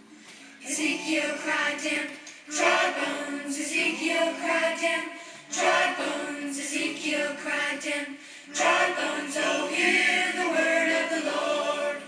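A song playing, led by voices singing together, in phrases that start afresh about every three seconds.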